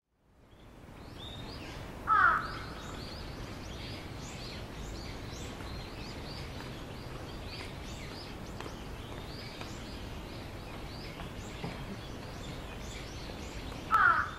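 Outdoor birdsong over steady background noise: many small birds chirping throughout, and a louder bird call twice, once about two seconds in and again near the end.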